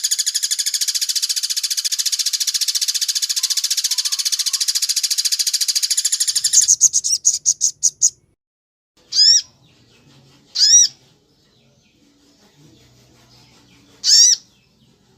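Recorded bird calls from a songbird training track. A fast, steady, high trill of rapidly repeated notes slows into a few separate notes and stops about eight seconds in. Three single, arched, ringing calls follow, spaced a couple of seconds apart.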